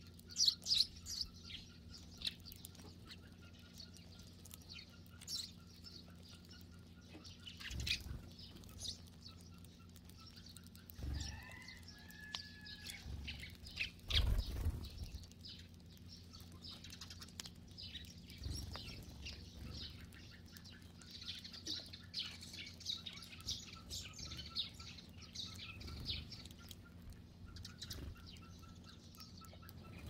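A flock of Eurasian tree sparrows chirping, with many short, high chirps overlapping, thicker at the start and again in the second half. A few soft wing flutters come as birds take off or land.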